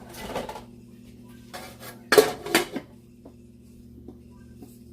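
Metal pot lid scraping and clanking against the rim of a pot that it won't seat on, with two loud clanks a little after two seconds in; the cook suspects the pot is bent.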